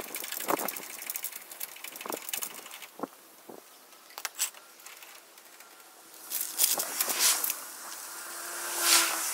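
Scattered metal clanks and knocks from setting a floor jack and cinder block under a trailer tongue. A rising rush of noise comes in over the last few seconds and peaks just before the end.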